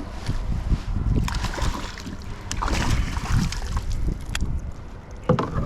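Wind buffeting the microphone on a kayak, with irregular water splashes and a sharp knock about four seconds in, while a hooked smallmouth bass is being fought.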